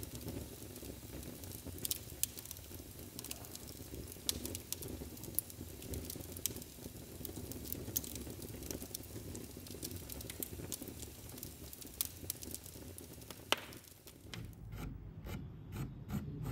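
Wood fire crackling in a fireplace: a steady low rustle with frequent irregular sharp pops. Near the end it gives way to a charcoal stick scratching and rubbing across canvas.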